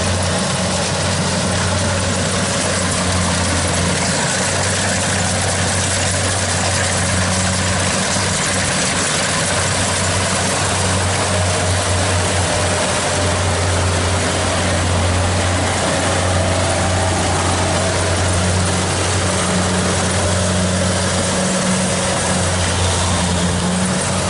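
Diesel engine of a Kubota DC70 Plus combine harvester running steadily at a constant speed, a loud even hum with no breaks.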